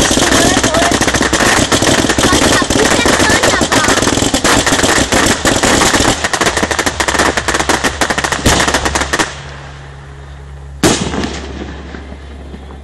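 Fireworks finale: dense, rapid volleys of crackling bangs many times a second. They stop abruptly about nine seconds in, and a single loud bang with a trailing echo follows a couple of seconds later.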